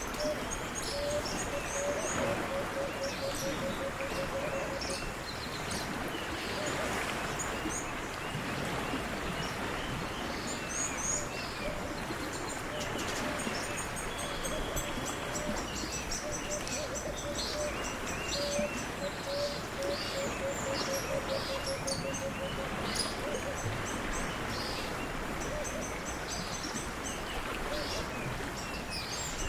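Many birds chirping and calling over a steady rushing background noise, with a low, rapid trill heard twice, each lasting several seconds.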